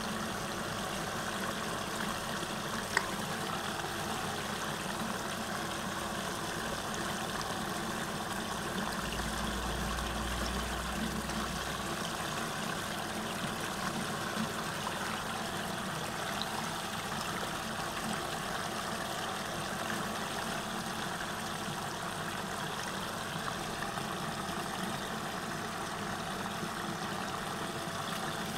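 Water swirling and draining down a whirlpool vortex over a steady motor hum. There is one sharp click about three seconds in and a brief low rumble around ten seconds in.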